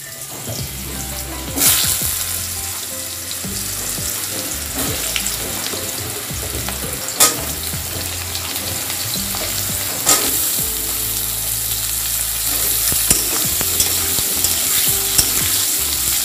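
Cubed potatoes sizzling steadily as they fry in hot oil in a karahi, stirred with a metal spatula that scrapes the pan and gives a few sharp knocks against it, the clearest about 2, 7 and 10 seconds in.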